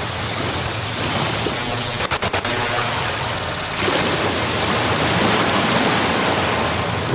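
5axismaker 5-axis CNC mill's spindle cutting foam: a steady rushing hiss with no clear tone. A few sharp clicks come about two seconds in, and the hiss turns brighter and a little louder about four seconds in.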